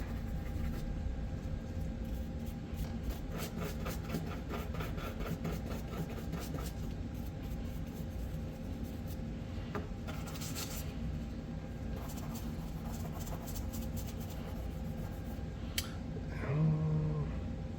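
Scrubbing and scraping on SKS rifle parts while carbon is cleaned off them: a run of quick scratchy strokes, with a short hiss about ten seconds in. Near the end comes a sharp click, then a brief hum.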